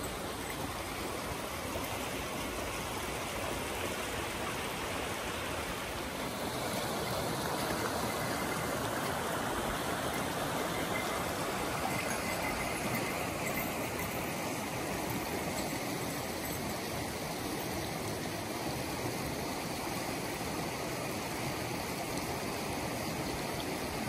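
Mountain creek running over rocks between snow banks: a steady rushing of water that grows a little louder about a quarter of the way in.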